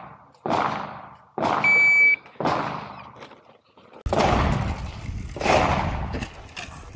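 Several pistol shots echoing across an outdoor range. About two seconds in, an electronic shot timer gives a single steady beep lasting about half a second.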